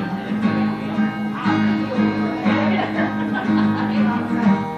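Live acoustic guitar strummed through an instrumental stretch of a song, with sustained chords and repeated strokes.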